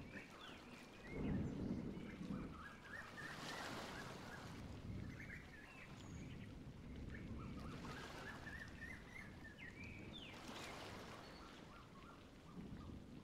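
Faint birds chirping over a low rumble of outdoor ambience, with a few soft swells of hiss.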